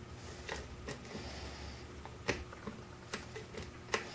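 Lock picking: faint metallic ticks and a handful of sharp clicks from a steel pick working the pins of a brass pin-tumbler lock cylinder held under tension in a vise, pins clicking as they set.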